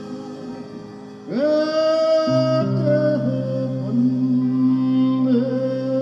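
Live folk-rock band playing. About a second in, a lead melody comes in with an upward slide into a long held note, over bass and electric guitars.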